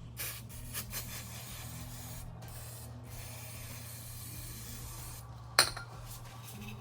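Aerosol brake cleaner spraying in two long hissing bursts, about two seconds each with a short pause between, to wash oil residue off the underside. A single sharp click comes just after the second burst.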